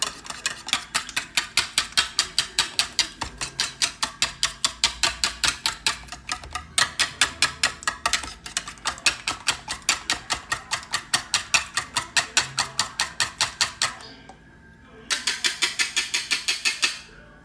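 Eggs being beaten by hand in a bowl, the utensil clicking rhythmically against the bowl about five times a second, with a short break about two-thirds of the way through before it resumes.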